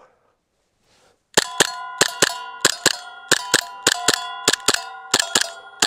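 Rapid fire from a CO2 blowback Glock 17 BB pistol, starting about a second and a half in: each sharp pop is followed a moment later by the clang of a BB striking a steel target plate. The ringing of the plates carries on and overlaps from one shot to the next, at roughly two shots a second.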